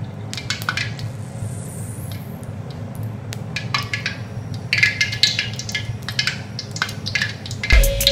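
Gas stove burner running steadily under a kadai of oil being heated for frying, with scattered light clicks and a cluster of clicks around the middle as the stove knob is turned. Background music comes in near the end.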